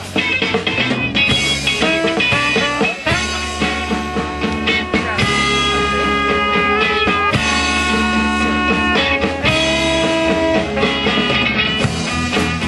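Live rock band playing: guitars with long held, sustained notes over drums and a steady low end.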